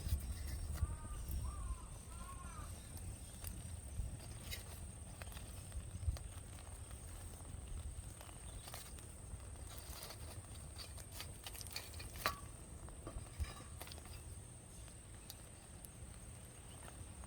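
Scattered crackles and snaps from a wood fire, with a bird chirping a few times about a second in and a steady high-pitched tone throughout.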